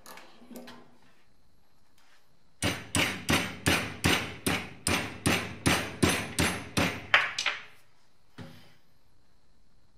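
A hammer tapping metal on a Jubilee hose clip held in a steel bench vise. It strikes about fourteen times in an even rhythm, roughly three a second, each a sharp clink with a short ring. A duller knock follows near the end.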